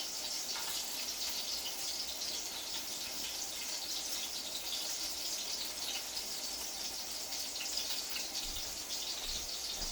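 Chopped onion and ginger sizzling steadily in hot oil in a pot, a constant fine crackle.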